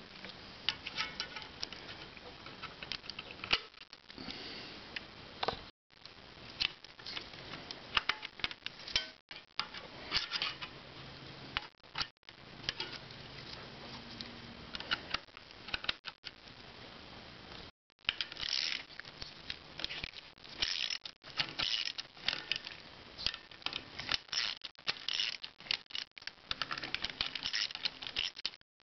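Small metallic clicks, clinks and taps of coil clutch springs and nuts being handled and fitted onto the clutch hub of a 1984 Harley-Davidson FXWG, irregular throughout and broken by a few brief dead gaps.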